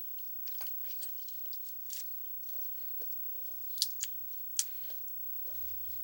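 Close-up mukbang eating sounds: wet chewing and mouth smacks from eating buttered shrimp, potato and egg, with scattered sharp clicks and two louder smacks a little past the middle.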